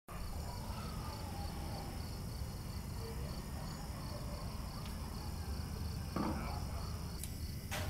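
Crickets chirping at night in a steady, evenly repeated rhythm over a low background rumble, with a brief rustling noise about six seconds in.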